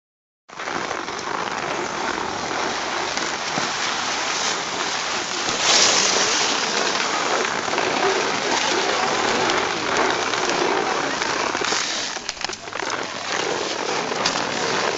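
Steady scraping hiss of skis sliding over packed snow, with a louder scrape about six seconds in.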